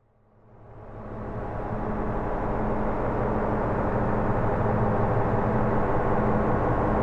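Low rumbling drone of a logo intro sound effect, fading in over about two seconds and then holding steady, with a low hum that swells and dips slowly.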